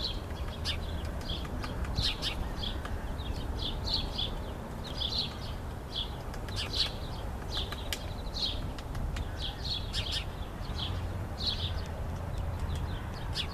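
Small birds chirping in short, repeated calls, with scattered sharp taps of a woodpecker pecking at wood as it excavates a nest hole. A steady low rumble runs underneath.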